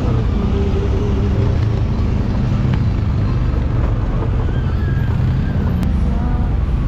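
ATV engine running steadily under way, with a constant low drone and noise from the ride.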